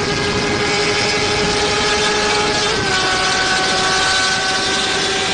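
Yamaha motorcycle engine running at high, steady revs at road speed, heard from on the bike with wind rushing over the microphone. Its pitch drops slightly a little past halfway.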